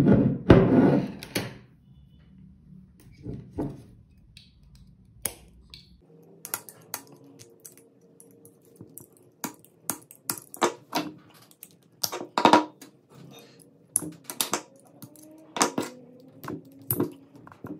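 Needle-nose pliers and a small hand tool clicking and scraping against the steel frame of a small transformer as its metal parts are pried off: irregular sharp metallic clicks, sparse at first and much denser from about six seconds in. A couple of louder handling knocks come right at the start.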